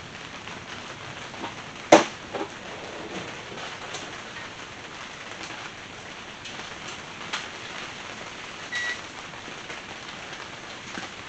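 Steady hiss of rain falling on the garage roof, with one sharp knock about two seconds in and a few fainter clicks.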